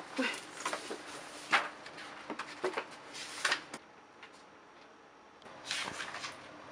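Paper book pages being flipped and rustling in a series of short, quick swishes, then a quiet gap and one more rustle of pages near the end.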